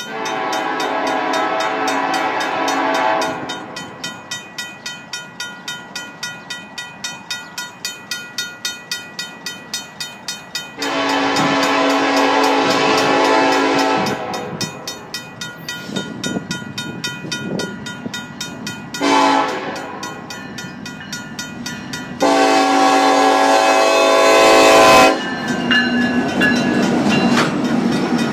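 A RACO mechanical crossing bell rings in rapid, even strikes while the lead Ferromex locomotive of a freight train sounds its multi-note horn in the grade-crossing pattern: long, long, short, long. After the last blast the locomotives pass close by with a loud rumble of engines and wheels on the rails.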